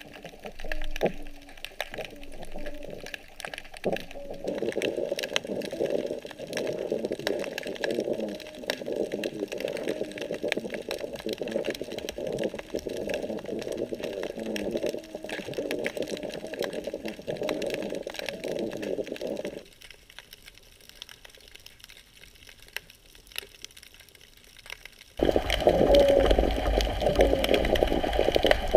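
Underwater sound picked up by a GoPro in its waterproof housing: a dense crackle of clicks over a muffled water rush. It changes abruptly about 4, 20 and 25 seconds in, drops low between about 20 and 25 seconds, and is loudest near the end.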